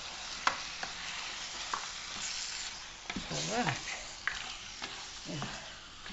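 Mutton pieces with onion, garlic, tomato and paprika sizzling in oil in a pot, braising in their own juices before any water is added. Scattered sharp clicks of a spoon against the pan, and a couple of short voice sounds.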